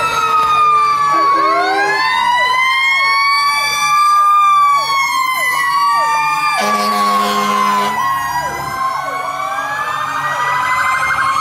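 Several fire truck sirens sounding at once as the trucks pass: overlapping wails rising and falling in pitch, with a rapid yelp beneath them. A horn blast of about a second and a half sounds a little past the middle.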